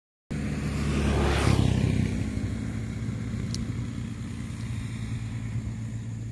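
A motor vehicle passing close by, its noise swelling to a peak about a second and a half in and then fading, over a steady low engine hum.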